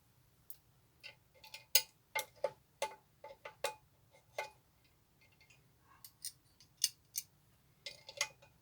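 Irregular light clicks and clinks of small bench-grinder parts being handled and pushed into place by hand during assembly, in two clusters with a short pause around the middle.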